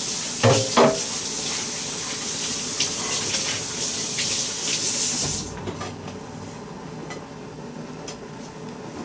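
A kitchen faucet running into a sink for about five and a half seconds, then shut off, with two knocks of a dish against the sink in the first second. A few light clicks follow.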